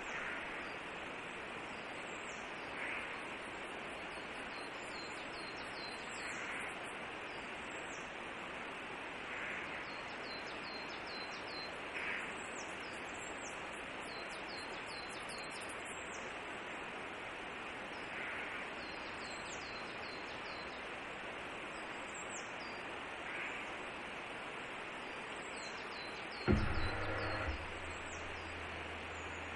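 Steady outdoor hiss with high, thin bird chirps repeating every few seconds. About 26 seconds in, a sudden thump and a low mechanical hum lasting about three seconds as the camera's pan-tilt unit moves.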